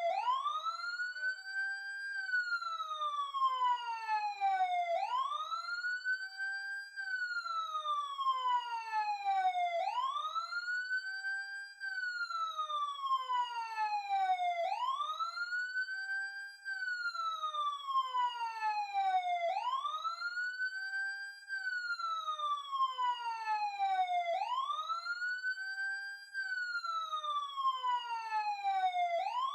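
Ambulance siren wailing: a pitch that rises over about two seconds, then slides down over about three, repeating roughly every five seconds.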